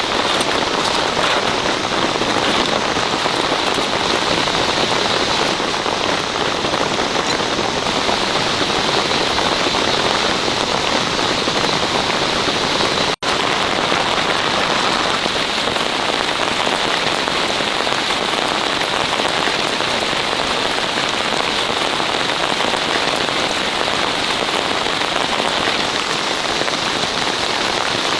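Heavy downpour falling steadily, a dense even patter of rain that cuts out for an instant a little before halfway.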